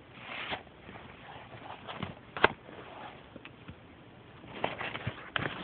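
Light handling noises from the vacuum cleaner's bag and cover being handled: a few scattered soft knocks and rustles, the loudest about two and a half seconds in.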